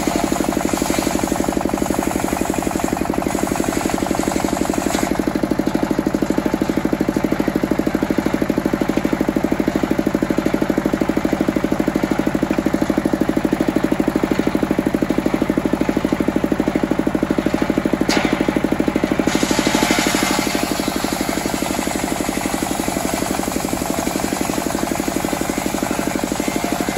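Single-cylinder stationary diesel engine running steadily with a fast even beat, driving a circular sawmill blade. The blade's cutting noise rises over the engine during the first few seconds and again from about twenty seconds in as teak planks are sawn.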